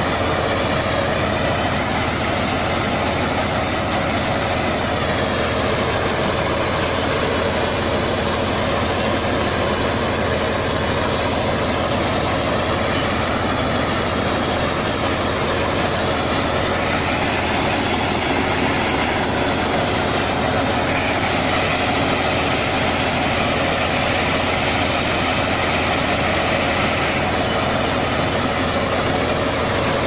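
Mini crawler-track combine harvester running steadily as it cuts and threshes rice, its engine and machinery making a dense, even mechanical noise.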